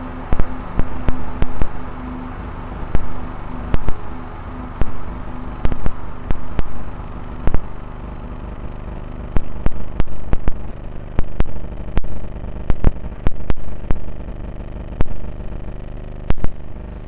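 Small electric drive motor and gearbox of an RC tank, heard onboard, running in short irregular bursts of throttle over a steady low hum, with scattered sharp clicks.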